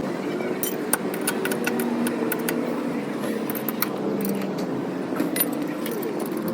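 Scattered light metallic clicks and clinks over steady background noise.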